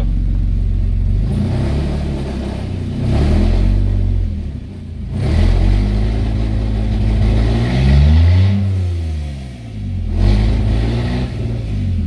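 A 2009 Toyota Camry's 3.5-litre V6 is revved up and let fall back several times, with the biggest rev about eight seconds in. This is a misfire check on an engine with a no-power complaint, and no misfire is detected.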